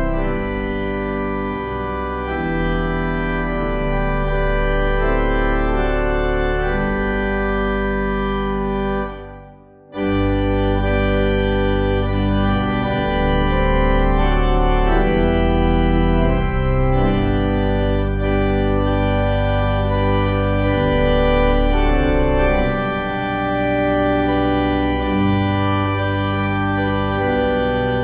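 Organ music with sustained chords changing slowly. There is a brief break about nine to ten seconds in, then the organ comes back in.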